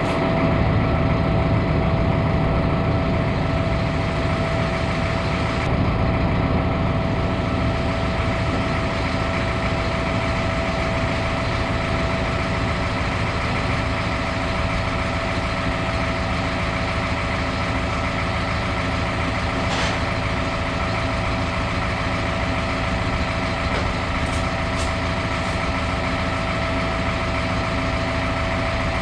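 Farm tractor engine running steadily, with a constant whine over it.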